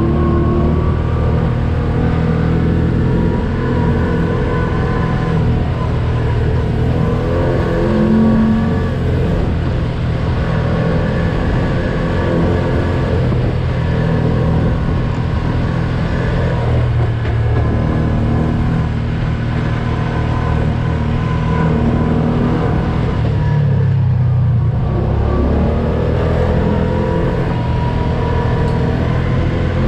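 Engine of an off-road side-by-side utility vehicle running steadily as it drives along a dirt trail, heard from on board.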